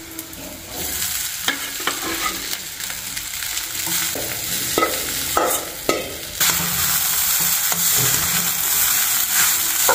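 Soaked flattened rice (poha) going into a small kadhai of onion and green chilli frying in hot oil, sizzling, while a metal spatula scrapes and knocks against the pan as it is stirred. The sizzle gets louder about six and a half seconds in.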